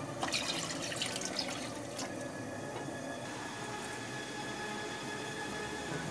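Water poured from a plastic bowl into a wok of broth, splashing and gurgling, busiest for the first three seconds.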